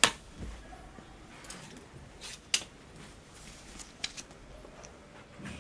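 Sharp clicks and clacks of a clothes hanger and its clips, with rustling cloth, as a garment is picked up and hung. The loudest click comes right at the start, with others about two and a half and four seconds in.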